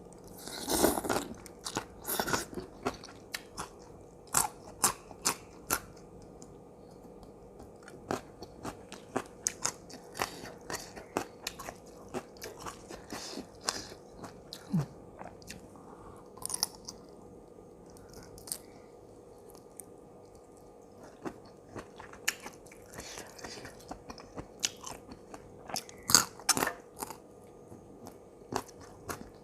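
Close-up eating sounds: crisp crunching bites and chewing at irregular intervals, densest near the start and again near the end, over a faint steady hum.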